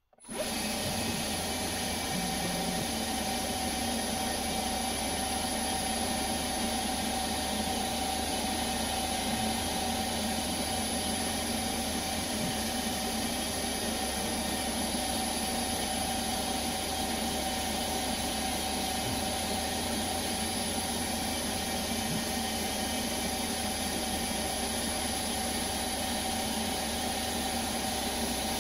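Small CNC lathe running, its spindle turning as the tool cuts a profile on a plastic bar: a steady machine hum with a constant high whine.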